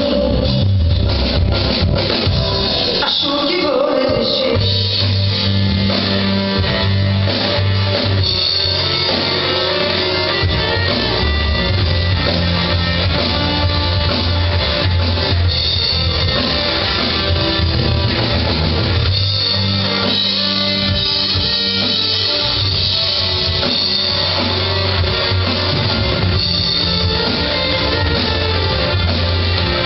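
Live pop-rock band music: guitar and drum kit over a steady low bass line, with a singer.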